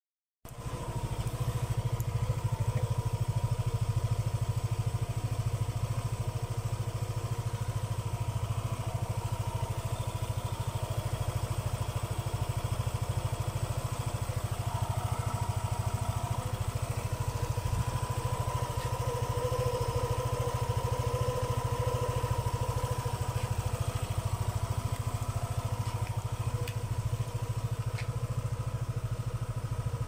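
Yamaha Aerox 155 scooter's single-cylinder 155 cc engine idling steadily, coming in abruptly about half a second in.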